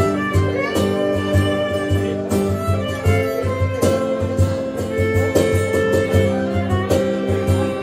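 Live acoustic trio playing an instrumental passage: a bowed violin melody over strummed acoustic guitar, with a steady cajon beat of regular low thumps.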